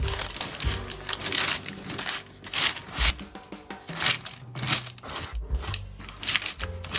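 Silicone spatula spreading and pressing a sticky chocolate mixture into a parchment-lined baking tin, a short rough scrape with each irregular stroke, over background music with a low bass line.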